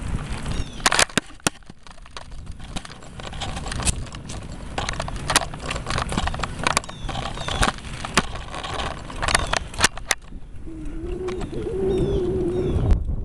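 Wind rumbling on the microphone with sharp clicks and rattles from a handheld camera on a moving bicycle. Near the end, birds chirp faintly and a low wavering tone comes in.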